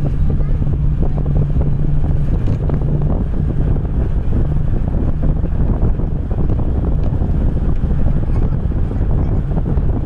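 Wind buffeting the microphone at a moving vehicle's open window, over the steady rumble of the vehicle's engine and tyres on a concrete road, with a steady low hum through the first few seconds.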